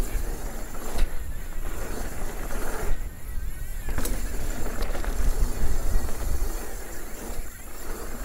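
Steel hardtail mountain bike rolling fast over hardpacked dirt jumps: tyre noise on dirt with wind rushing on the microphone, sharp knocks about a second in and again around four seconds, and a brief quieter stretch in between.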